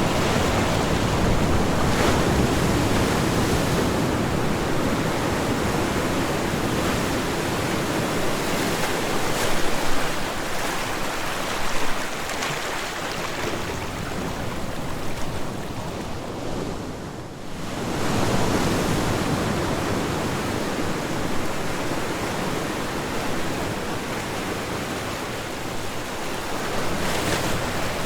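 Ocean waves breaking and washing ashore: continuous surf that dips briefly a little past halfway, then swells again as the next wave comes in.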